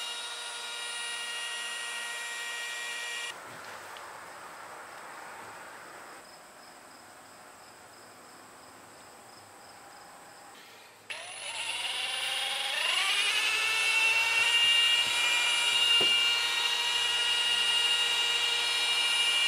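Rotary polisher with a coarse foam cutting pad running on aircraft paint, a steady whine. It cuts off about three seconds in, and a little past halfway it starts again, its whine rising in pitch as it spins up and then holding steady, louder than before. This is the heavy cutting step that strips oxidation from the paint.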